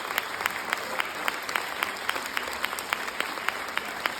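Audience applauding, with one nearby pair of hands clapping sharply about four times a second over the general clapping.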